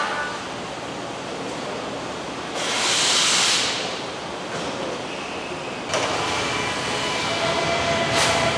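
Machinery noise on a motorcycle assembly line: a steady mechanical din with faint whines, a hissing surge about three seconds in that fades a second later, and a sudden louder clatter near six seconds.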